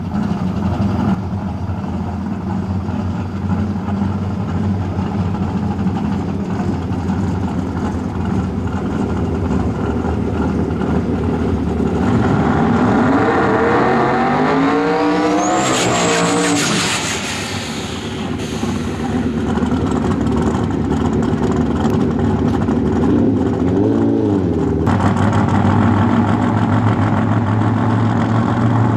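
Twin-turbo V8 of an Outlaw 10.5 drag-racing Mustang running at idle, then revving up and back down over several seconds in a burnout about halfway through, with a high whine climbing alongside the revs. Later comes one short rev blip, and the engine runs on at idle.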